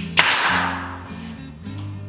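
A pneumatic finish nail gun fires once, shortly after the start, driving a nail into window trim: a sharp crack that trails off over about a second. Background music with steady low notes plays throughout.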